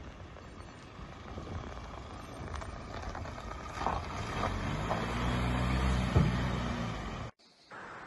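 A motor vehicle's engine running with a low rumble, getting louder and higher a few seconds in, with a few clicks. It cuts off abruptly near the end, leaving a faint steady hiss.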